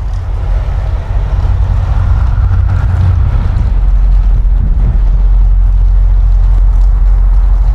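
Heavy, steady low rumble of wind buffeting the microphone, growing louder about halfway through.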